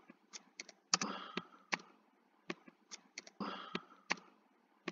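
Computer keyboard keys and mouse buttons clicking as digits are entered: about a dozen irregular clicks, two louder clacks about one and three and a half seconds in.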